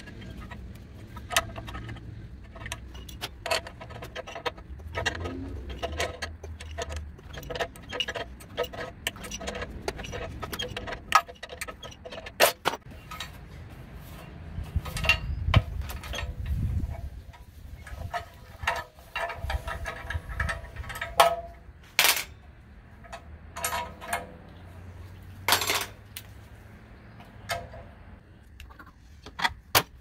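Scattered metal clicks, taps and clanks of hand tools working on an air conditioner's condenser fan motor, trying to free a part that is stuck fast.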